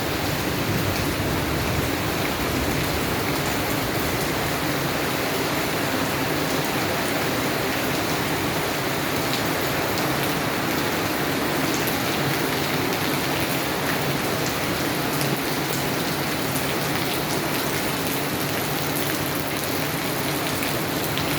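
Steady rain falling, a continuous even hiss with many small drop ticks on a surface.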